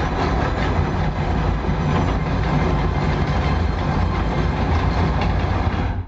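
Film soundtrack played loud through a cinema's sound system: a dense, steady low rumble and roar that drops away sharply at the very end.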